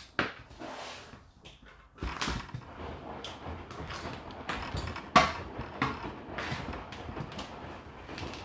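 Whirlpool dishwasher being loaded: racks sliding on their runners and dishes knocking and rattling in them in irregular clatters, with one sharp clack about five seconds in.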